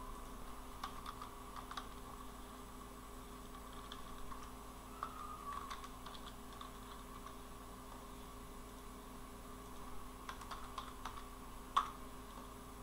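Faint computer keyboard typing in a few short bursts of key clicks, the sharpest click near the end, over a steady low electrical hum.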